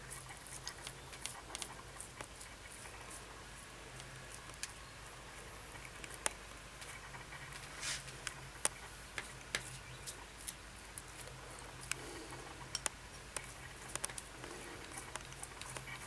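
Burning charcoal in a grill crackling, with irregular sharp pops and clicks over a faint hiss and a low steady hum.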